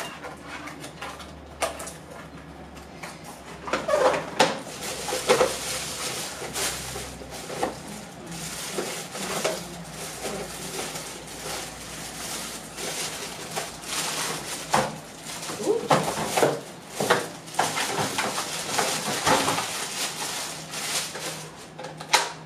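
Plastic wrapping crinkling and packaging rustling as boxed kitchenware is unwrapped and handled, with frequent sharp clicks and knocks of pieces being moved and set down.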